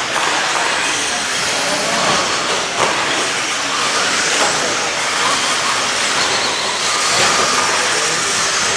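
Electric RC stadium trucks running on the track: a steady hissing wash of motors and tyres with faint rising and falling motor whines, and a sharp knock near three seconds in.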